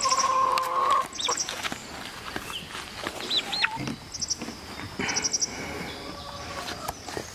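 Chickens calling: a hen's drawn-out call lasting about a second at the start, then a few short high peeps from the young Dark Brahma chicks in the plastic pet carrier, with scattered knocks as the carrier is handled and set down on the shavings.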